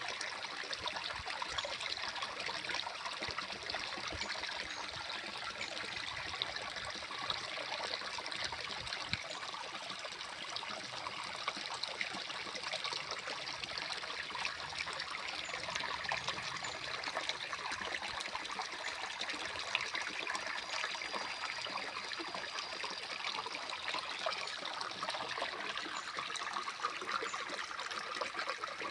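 Water trickling and splashing steadily, a continuous running-water sound.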